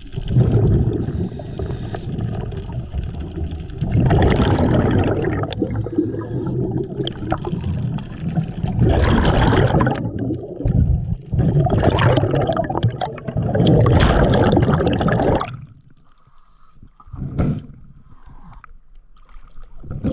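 Scuba diver's exhaled bubbles from the regulator rushing and gurgling past an underwater camera, in about four long bursts, one per breath. The bursts stop about three-quarters of the way through, leaving a few short splashes.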